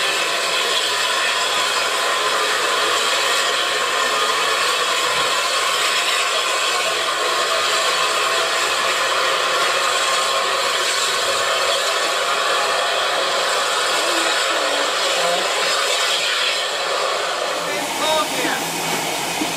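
Narrow-gauge steam locomotive standing with steam hissing loudly and steadily. Near the end the hiss eases to a lower level.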